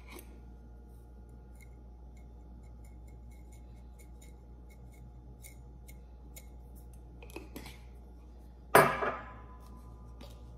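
Egg frying in a nonstick fry pan, with faint crackles and pops scattered all through. There are two light knocks about seven seconds in, then one louder sharp knock with a short ring about nine seconds in.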